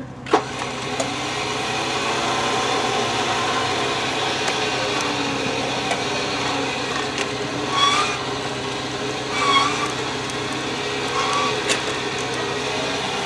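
Vehicle engine running steadily under load, pulling on the line strapped to a large boulder to haul it up out of a road washout. A sharp knock just after the start, and three short squeaks in the second half.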